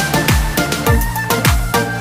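Background music with a steady electronic beat, its deep drum hits dropping in pitch.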